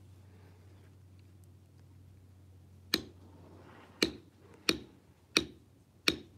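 Leather stamping tool struck with a 20-ounce maul: a quiet pause, then five sharp taps starting about three seconds in, coming about every two-thirds of a second.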